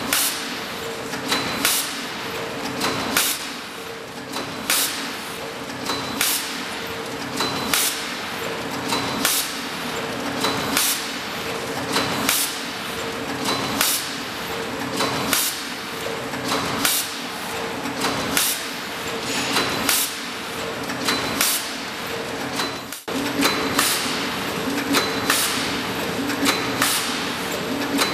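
Horizontal roll-film pouch forming, filling and sealing machine running: a steady hum under sharp, hissing mechanical strokes that repeat in an even cycle, the strongest about every second and a half with a lighter one in between.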